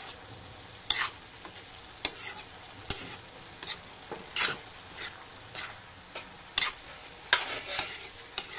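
Metal spoon stirring and scraping chopped banana stem and potato around a kadhai, in irregular strokes about one or two a second, over a low steady sizzle of the vegetables frying in oil.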